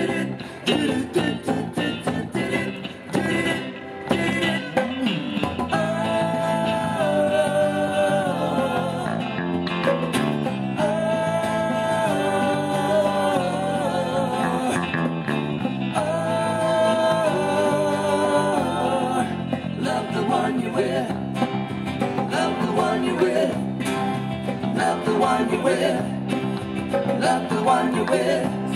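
Live band playing: acoustic guitar, electric guitar, electric bass and drum kit, with a melody carried in three long held phrases.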